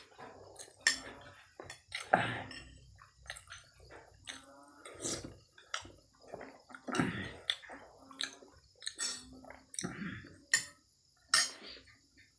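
Close-miked eating sounds: chewing and lip-smacking, with sharp clicks and light clinks of a spoon on a plate, in irregular bursts.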